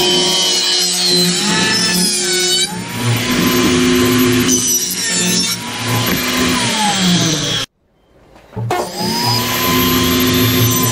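Table saw running and ripping wooden boards, its steady whine dipping in pitch as the blade bites into the wood. The sound cuts out abruptly for about a second, a little under eight seconds in, then the saw is heard running again.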